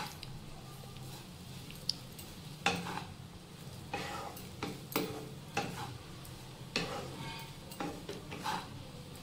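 Wooden spatula stirring and scraping flattened rice (chuda santula) around a non-stick kadai, in irregular strokes about one or two a second.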